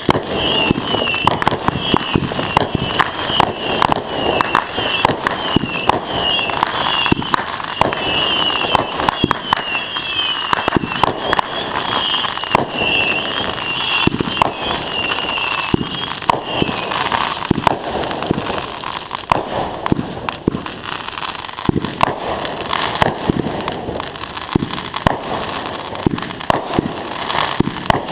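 Consumer fireworks going off in a rapid, continuous barrage of pops, bangs and crackles. A high, repeated chirping whistle rides over the first half or so and stops a little past the middle.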